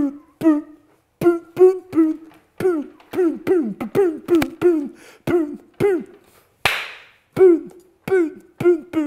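A man's voice mouthing a beat: short, low 'bud, bud' syllables, each dropping in pitch, about two a second, with one breathy hiss a little past the middle.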